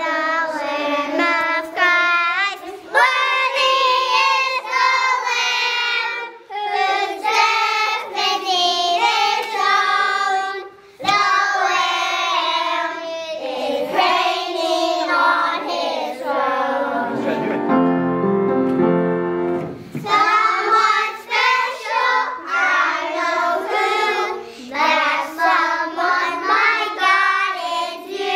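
Kindergarten children's choir singing together, with a short break in the singing about two-thirds of the way through.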